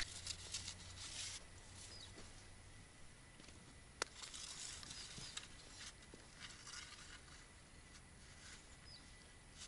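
Quiet outdoor background with faint rustles and small clicks, and one sharper click about four seconds in.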